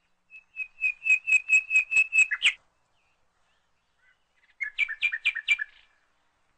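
Bird song: a fast run of about eight repeated whistled notes, then a second, shorter phrase of chirps about two seconds later.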